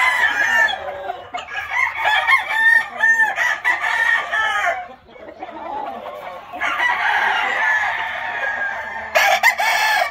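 Sweater gamecock crowing and clucking. A crow tails off just after the start, then comes a run of short clucking calls, then a long drawn-out crow past the middle and another loud call near the end.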